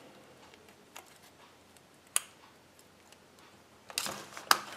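Handling noise: a few sharp clicks of a small plastic toy, then a short burst of crackling paper and foil near the end.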